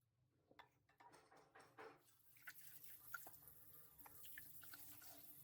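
Faint water drips and small clicks, scattered irregularly over a soft hiss that grows louder about two seconds in.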